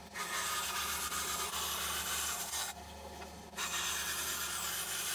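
Benchtop bandsaw running with a steady motor hum while its blade cuts through a block of resin Micarta, in two rasping passes with a short break between them.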